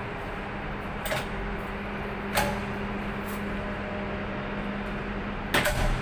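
A steady low hum with sharp clicks, one about a second in, another about two and a half seconds in, and a quick double click near the end.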